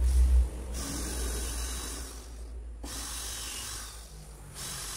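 Cordless drill running against a rusted steel bus body panel in three bursts of one to two seconds, each starting and stopping sharply, after a low rumble at the start.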